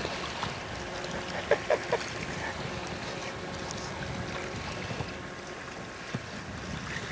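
Steady wind and sea wash, with a few short faint sounds about a second and a half in.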